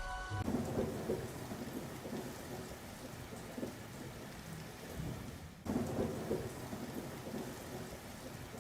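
Thunderstorm sound effect: steady rain with low rolling thunder that dips briefly and swells again about five and a half seconds in.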